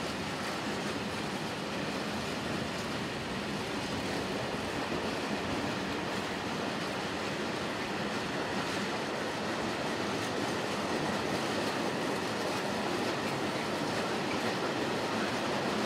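Train running past on the rails: a steady rolling noise of wheels on track, growing a little louder in the second half.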